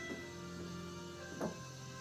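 Soft background music of sustained notes, with a plucked note about one and a half seconds in.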